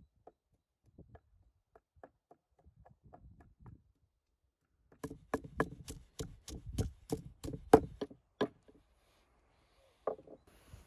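Wooden pestle pounding garlic in a wooden mortar: light, scattered taps at first, then from about five seconds in a quick run of firm knocks, roughly four a second, for about three seconds, and one more knock near the end.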